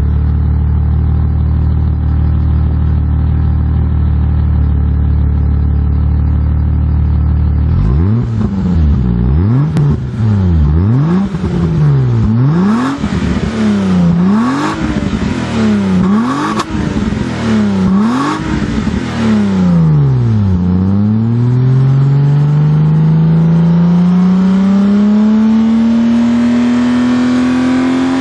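Alfa Romeo 155's 2.5-litre V6 breathing through an OVER Racing front pipe and centre and rear silencers: it idles steadily, is blipped about six times in quick succession, then revs in one long, slow climb.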